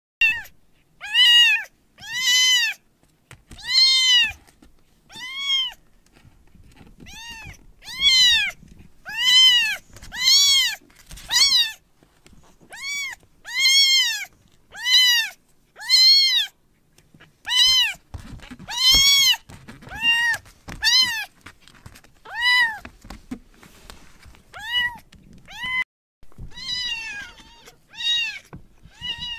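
Baby kitten meowing over and over, about one high-pitched call a second, each call rising and then falling in pitch.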